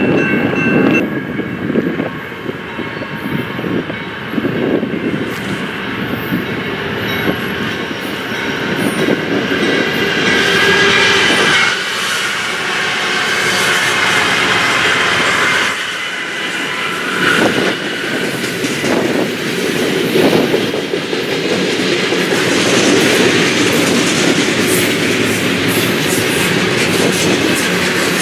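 BNSF double-stack intermodal freight train passing close by: diesel locomotives running as they go past, then steel wheels clattering over the rail joints under the container cars in a steady rumble.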